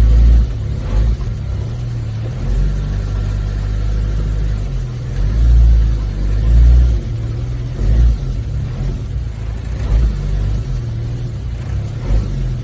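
1987 Suzuki Samurai's small four-cylinder engine running as it creeps along at low speed, a steady low rumble with a few louder surges of throttle.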